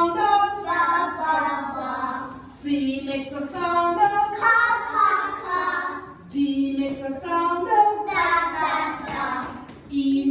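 A group of young children singing a phonics song together, in phrases that repeat about every four seconds.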